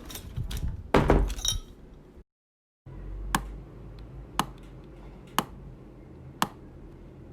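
A clatter of impacts with a bright glassy chink and ringing, cut off after about two seconds. After a short pause, sharp single clicks come about once a second over a low steady hum.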